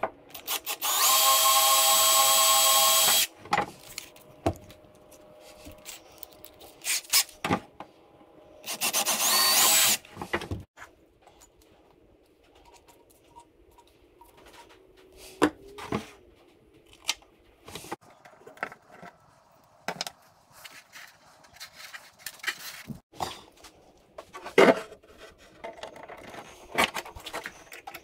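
Cordless drill boring through the transom of an RC boat hull: two runs, the first about two seconds long and the second about one second, each with a steady motor whine. After that come scattered light clicks and taps of small parts being handled on the bench.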